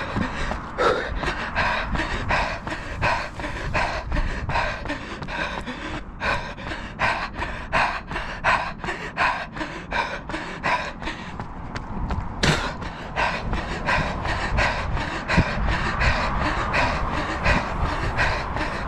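Runner breathing hard in rhythmic pants on a fast tempo run, with the even beat of running footfalls on an asphalt path. A single sharp knock comes about two-thirds of the way through.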